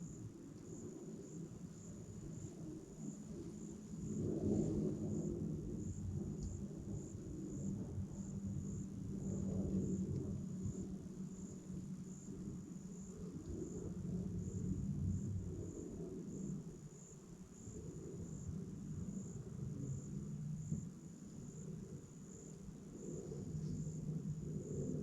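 An insect chirping in a steady high pulse, about twice a second, over a louder low rushing noise that swells and fades.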